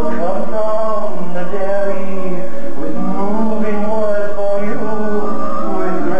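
Recorded show tune over a theater's speakers: a male voice singing over a band accompaniment for audio-animatronic food characters, caught on a camcorder microphone.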